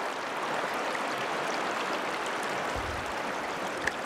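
River rapids rushing steadily.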